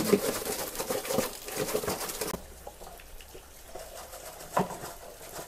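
Water splashing and running as clothes are washed by hand with soap. The splashing breaks off sharply about two and a half seconds in, leaving a quieter stretch with a single sharp knock near the end.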